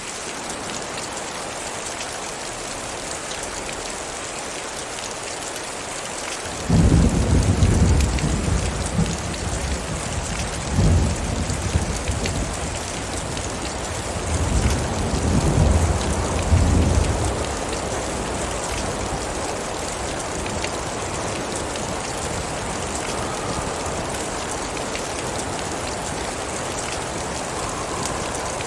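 Steady rain with a thunderstorm: a sudden loud thunderclap about seven seconds in, rolling on with further rumbles around eleven seconds and again from about fifteen to seventeen seconds, then dying back to steady rain.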